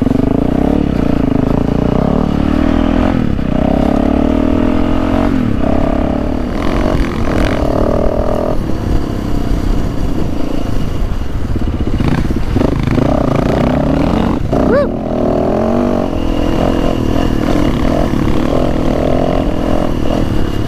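Yamaha dirt bike's engine running under way on a dirt trail, its pitch rising and falling as the rider works the throttle and shifts.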